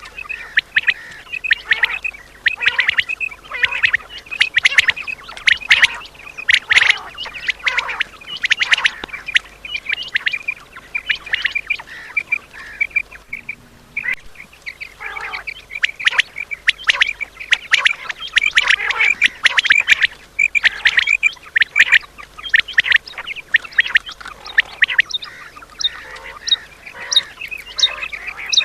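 Common quail calling over and over in quick runs of short, sharp notes, with a brief pause about halfway through.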